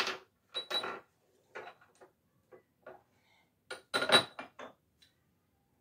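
Small glass pieces clinking and knocking as they are picked up and set down on a display cabinet shelf. The taps come scattered and irregular, a few with a brief glassy ring, with the loudest cluster about four seconds in.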